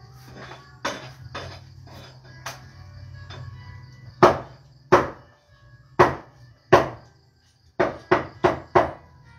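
Meat cleavers chopping through roast pork on a table: a few light cuts, then from about four seconds in four heavy chops roughly a second apart, and a quick run of four chops near the end.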